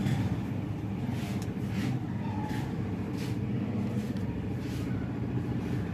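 A steady low motor-like hum, with a few faint short rustles or clicks.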